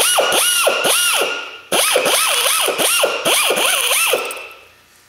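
Pneumatic air nibbler cutting aluminum diamond plate. Its air-motor whine rises and falls two or three times a second as it bites into the sheet, over a high hiss. It runs in two bursts with a short break a little under two seconds in, then winds down about four seconds in.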